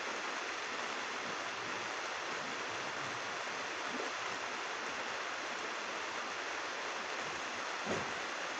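Steady hiss of rain falling on a thick plastic roof, with one faint brief knock near the end.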